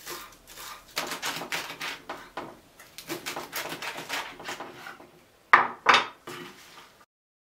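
Kitchen knife chopping fresh chives and lettuce on a wooden chopping board: a quick run of cuts, then two louder strokes about five and a half seconds in, and it stops suddenly.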